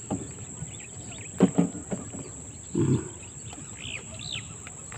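Steady high-pitched insect chirring, with two short low voice sounds in the first half and two quick bird chirps near the end.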